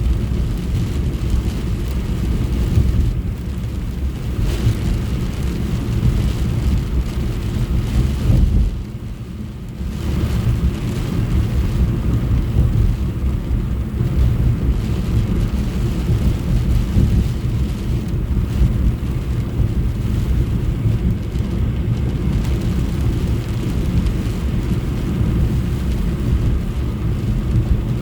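Car driving in the rain, heard from inside the cabin: a steady low road and engine rumble with rain hissing on the body and windscreen. The rumble drops away briefly about nine seconds in, then returns.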